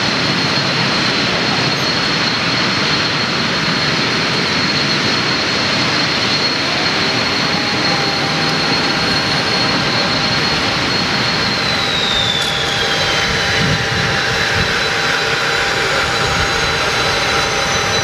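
Learjet 31A's Garrett TFE731 turbofan engine running on the ground: a loud steady rushing noise with a high whine that slides down in pitch about twelve seconds in, after which a slightly lower whine holds steady.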